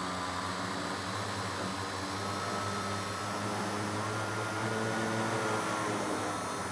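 A radio-controlled model airplane's motor and propeller running steadily, picked up on board: a hum with a higher whine whose pitch drifts a little higher about halfway through, under constant hiss.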